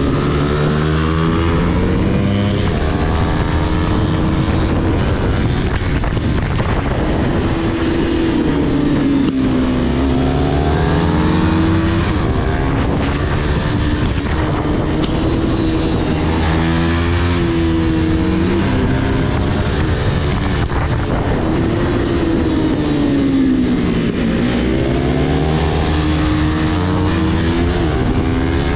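Motorcycle engine running under way, its pitch rising and falling repeatedly as the revs change.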